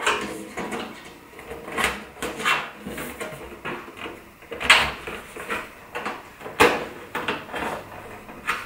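Irregular metallic clicks and knocks from a steel IKEA Helmer drawer being assembled by hand, as a screwdriver pushes in the pins and bends over the tabs that hold the drawer front. The sharpest knock comes a little past halfway.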